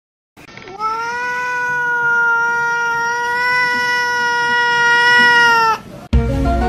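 A cat's long yowl, rising slightly at the start and then held at one steady pitch for about five seconds before it stops. Music starts just before the end.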